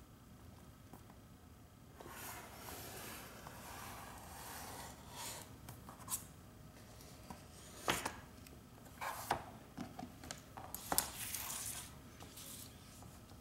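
Paper and thin adhesive film being handled: a stretch of rustling and rubbing, then a series of short, sharp crackles and snaps.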